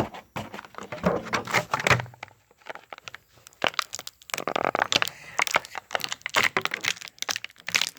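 Action figure packaging being opened by hand: a rapid run of plastic cracks and clicks with cardboard crinkling and tearing, a denser stretch of tearing about halfway through.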